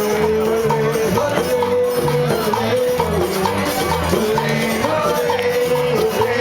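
Latin-flavoured dance music with a repeating bass line, shaker-style percussion ticking in a steady beat, and a long held melody line.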